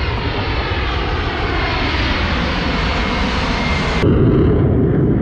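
A large jet aircraft passes overhead, a loud rushing engine noise whose pitch slowly falls as it goes by. About four seconds in it cuts off abruptly to the lower, rougher rush of a Sea-Doo jet ski on the water.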